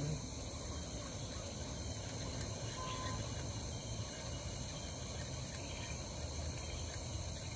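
Steady night-time chorus of crickets and other insects, an even high-pitched trilling.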